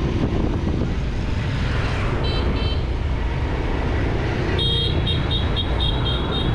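Street traffic: a steady rumble of engines and wind noise. Two short high beeps of a vehicle horn come about two seconds in, and a run of quick high beeps, about four a second, fills the last two seconds.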